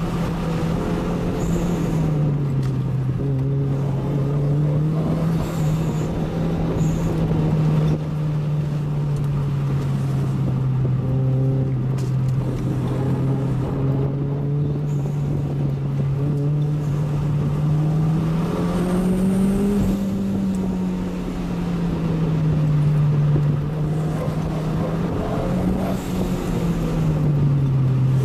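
Inside the cabin of a 1993 Toyota MR2 turbo, its 3S-GTE 2.0-litre turbocharged four-cylinder running steadily under light load, the engine note dipping and rising gently with speed through the bends, over road and tyre noise.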